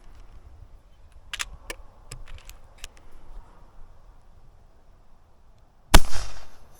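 A few faint clicks, then a single sharp air rifle shot about six seconds in, with a short ring-out after it.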